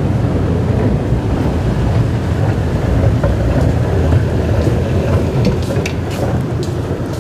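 Loud, steady low rumble in an underground MRT station, with a few light clicks near the end.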